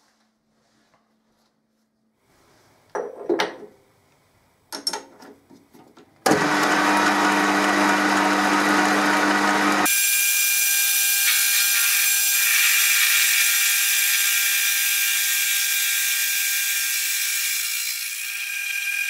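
Metal lathe turning a steel workpiece: a few knocks about three to five seconds in, then the lathe starts running about six seconds in with a loud steady hum, and about ten seconds in the sound turns to a steady hiss with a high ringing tone as the tool faces the steel.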